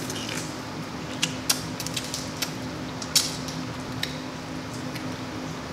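A few sharp clicks and cracks of crab legs being handled and eaten, spaced irregularly, over a steady low hum.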